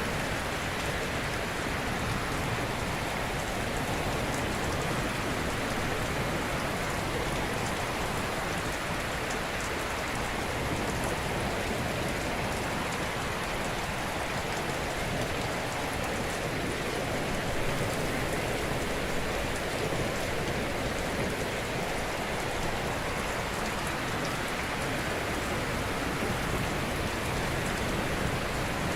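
Ocean surf washing on a shore: a steady, dense hiss of breaking water that hardly rises or falls.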